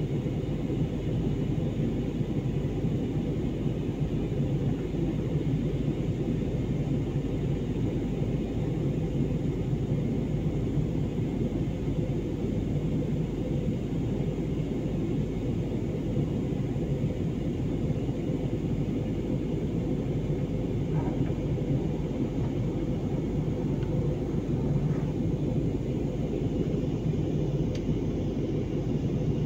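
Steady low rumble of an airliner in flight, heard from inside the passenger cabin: engine and airflow noise.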